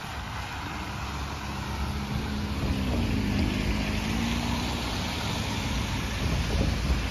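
Train passing: a steady low rumble, growing a little louder after about two seconds, with a drawn-out engine drone in the middle.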